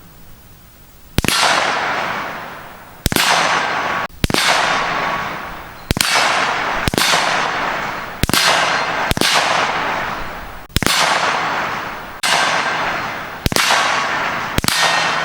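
Springfield Saint AR-15-style rifle firing about eleven single shots at an irregular pace, each crack followed by a long fading echo.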